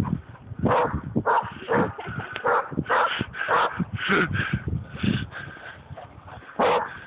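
Dog barking repeatedly, about a dozen short barks at an uneven pace, with a pause near the end.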